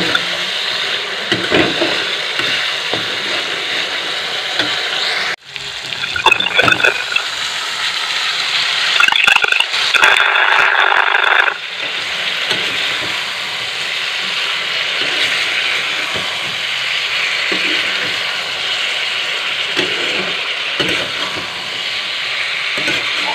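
Sauce and sliced vegetables sizzling and frying in a wok, with a metal spatula scraping and stirring against the pan. The sound briefly cuts out about five seconds in, and the sizzling is louder and harsher from about nine to eleven seconds in.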